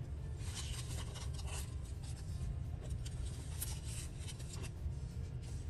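Paper scraps being handled and slid across a work surface: soft, scattered rustling and brushing, over a steady low hum.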